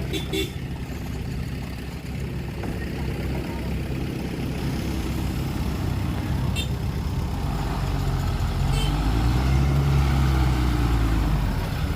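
Heavy earthmoving-machine diesel engine running steadily, then growing louder and revving up about two-thirds of the way in. A few light clicks or knocks sound over it.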